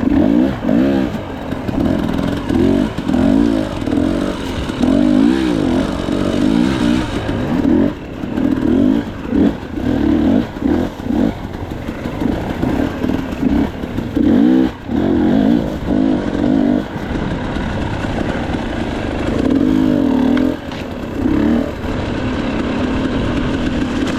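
KTM 300 XC-W's two-stroke single-cylinder engine revving up and down over and over as the throttle is worked on and off, with brief drops in between.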